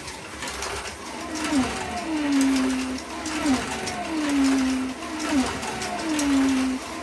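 A 1:32 slot car's electric motor whining as it laps a small oval track. Once a lap, about every two seconds, its pitch drops quickly and then holds low for under a second, over a light clicking rattle.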